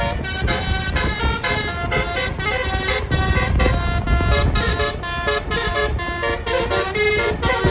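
A bus's Basuri telolet horn playing a quick melody of short stepped notes, over a low rumble.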